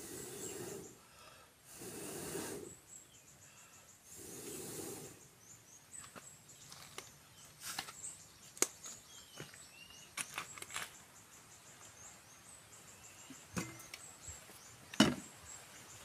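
A man blowing hard into a smoky fire of wood and coconut husk in three long puffs about two seconds apart to get it burning. After that come scattered small clicks and snaps of the fire and its fuel, and one loud knock about fifteen seconds in.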